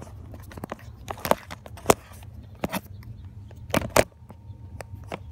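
Handling noise: irregular sharp clicks and knocks, with the loudest pair about four seconds in, as a phone is moved and bumped around against the dashboard's plastic and metal. A low steady hum runs underneath.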